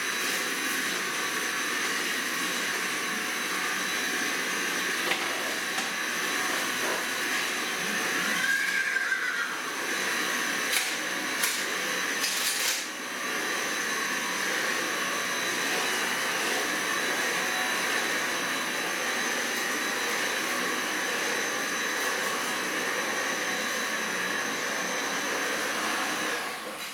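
Cordless stick vacuum cleaner running steadily with a high whine, a few knocks about eleven to thirteen seconds in, then switched off near the end.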